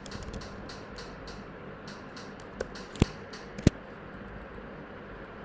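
Computer keyboard keys clicking in a run of quick taps, with three sharper, louder key strikes around the three-second mark. After that only a low steady hiss remains.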